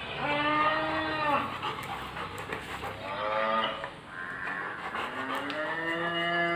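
Recorded cow mooing played back through an Amazon Echo smart speaker: three moos, the last one long and slowly rising in pitch.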